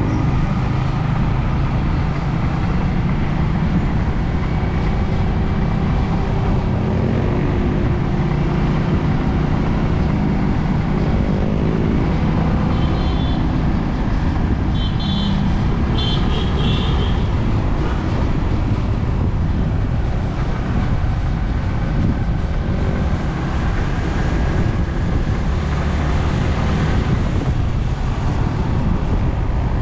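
Motorcycle engine running steadily under wind and road noise while riding, with its pitch rising twice in the first half as the bike speeds up. A few short high chirps sound about halfway through.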